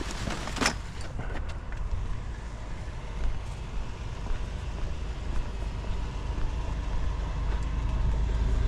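Idling van engine's low steady rumble, with a few sharp clicks and knocks in the first second or so.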